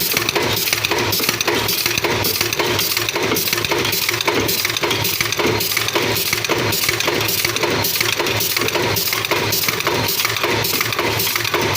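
Staple pin making machine running, a fast, even rhythm of metallic clinking strokes, about three a second, over a steady mechanical drone.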